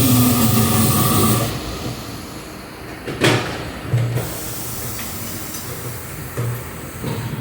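Tire-shop air tool running: a strong hiss of compressed air with a whirring hum that cuts off after about a second and a half. A single sharp metallic knock follows about three seconds in.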